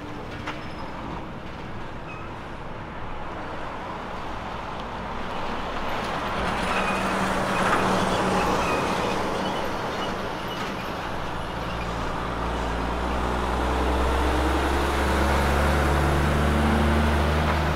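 Heavy semi-trailer truck turning and passing close at low speed: diesel engine running and tyres on the road, loudest as the cab goes by about eight seconds in, then a steady low engine drone swelling as the loaded trailer rolls past.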